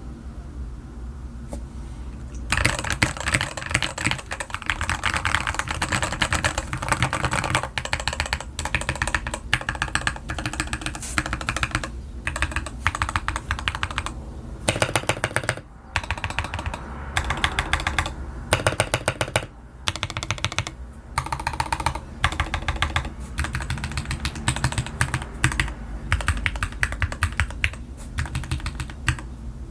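Fast, continuous typing on an LTC Nimbleback mechanical keyboard with Gateron Milky Yellow Pro linear switches and XDA keycaps, its case silicone-filled and tape-modded, stabilizers lubed. The keystrokes start about two seconds in over a low steady hum and run as a dense patter with a couple of brief pauses.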